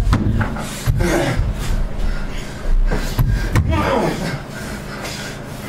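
Actors grunting and gasping hard in a staged fight, with a few sharp thuds of impact from bodies and feet hitting the floor and set.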